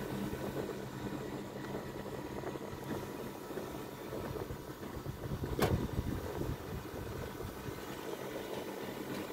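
Outdoor unit of a Sharp AH-PR13 R22 split air conditioner running steadily, its compressor humming and condenser fan turning, under test for weak cooling. A single sharp knock sounds about halfway through.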